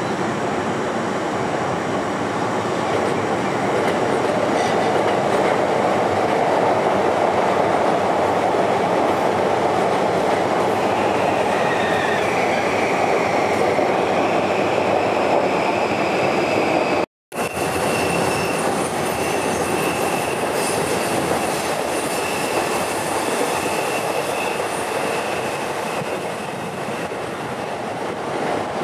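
Electric commuter trains running on steel rails: a steady rumble of wheels on track with thin, high squealing tones over it. The sound drops out completely for a split second about two-thirds of the way through.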